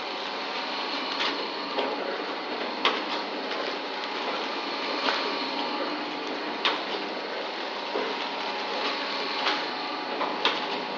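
Automatic flour packaging machine running: a steady mechanical hum with a faint steady tone, broken by a sharp click every second or two.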